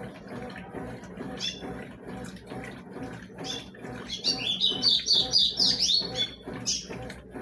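Birds chirping loudly for about two seconds in the middle, over the steady running and sloshing of a Consul CWS 12 washing machine on its rinse cycle.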